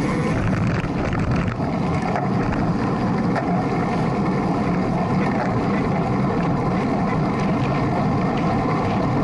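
Steady wind noise over the microphone of a camera on a road bike's handlebars, riding in a racing pack at about 25 to 30 mph.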